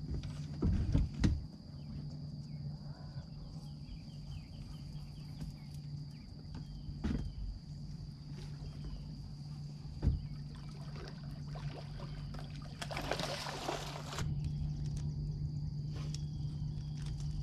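Steady low hum of a boat's electric trolling motor, with a few light knocks against the aluminium hull and a brief hissing rush of water-like noise about 13 seconds in.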